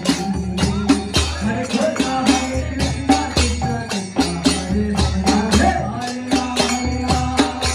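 Devotional kirtan music: chanting over hand cymbals and drum jingling at a steady beat of about three to four strokes a second.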